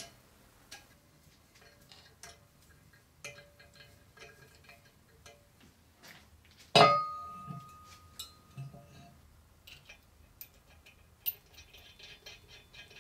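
Light metallic clinks and ticks of steel parts and tools being handled. About seven seconds in, one loud metal-on-metal clank with a ringing tone that fades over about a second and a half, as a heavy pillow block bearing is set down on a steel plate.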